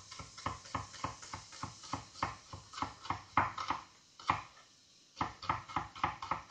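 Kitchen knife chopping vegetables on a wooden cutting board: quick, even strokes about three or four a second, pausing briefly about two-thirds of the way through, then resuming.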